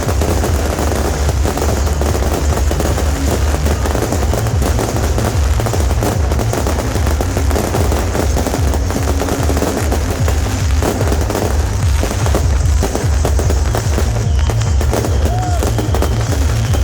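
Beehive firework barrage: bottle rockets and firecrackers go off in a dense, continuous rapid crackle. A steady low rumble and music play underneath.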